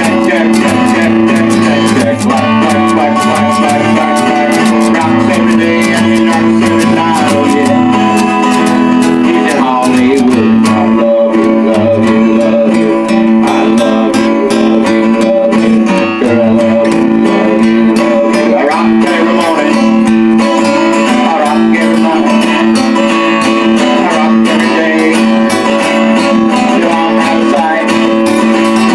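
Acoustic guitar playing continuously without singing: fast strumming and picked notes over held low notes.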